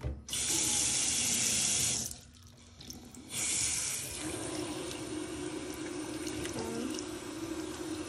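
Water from a bathroom sink faucet running into the basin. It gushes hard twice in the first four seconds, then settles to a steady stream as a new charcoal filter pad is rinsed of loose carbon under it.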